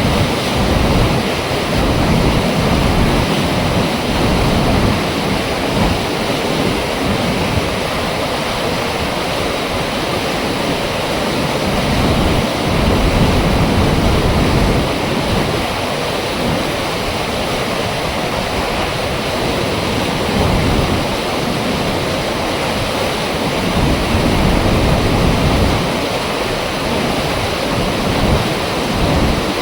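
Loud, steady rush of water flowing through an opened dam flap gate, with the low rumble swelling and fading every few seconds.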